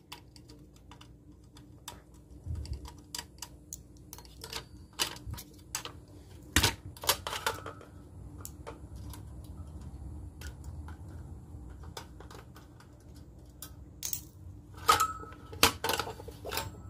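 Scattered light clicks and small metallic knocks of a screwdriver and metal parts being handled as the last screw holding a DVR's hard drive is taken out. There are a few louder knocks near the end.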